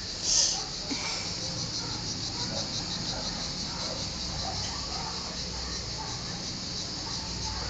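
Steady high hiss with faint soft rustling and handling noise as kittens are handled and petted on a lap, with a brief louder noise about half a second in.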